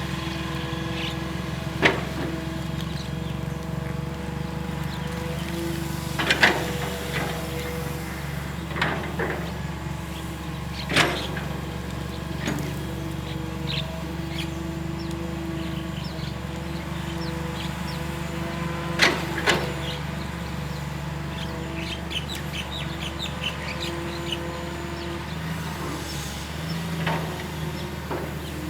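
Diesel engine of a Hitachi EX220-1 long-reach excavator running steadily, with about five sharp knocks scattered through it. Short bird chirps come a little past the middle.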